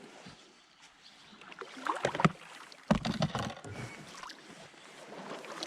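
Kayak paddling and manoeuvring: paddle splashes in the water, with a few knocks and clatter against the plastic hull about two and three seconds in.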